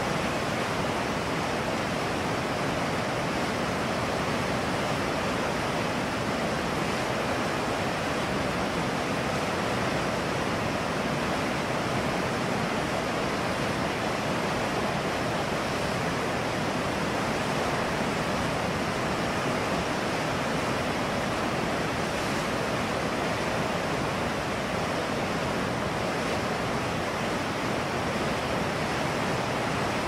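River rapids rushing over rocks: a steady, unbroken wash of water noise that does not change in level.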